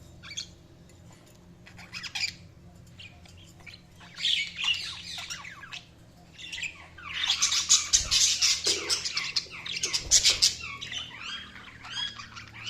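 Budgerigars chirping and chattering: scattered short chirps at first, then a dense run of warbling and squawks from about seven to eleven seconds in, followed by more chirps.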